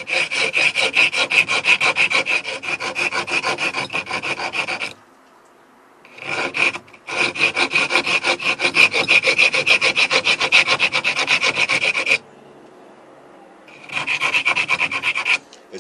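A hand file rasping against natural stone in fast, light back-and-forth strokes, in three runs with short pauses between: the back of a stone switch plate's switch opening being backfiled.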